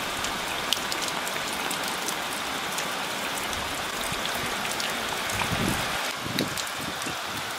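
Steady rain falling, with scattered drops ticking close by. A short low scuffle comes a little past two thirds of the way through.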